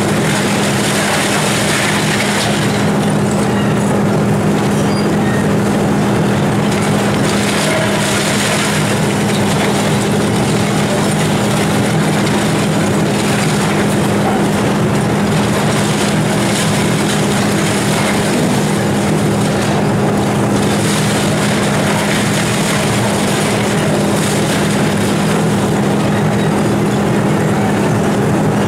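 Volvo EC290C excavator's diesel engine running steadily under load during demolition, with bricks and roof debris crashing and rattling down at intervals.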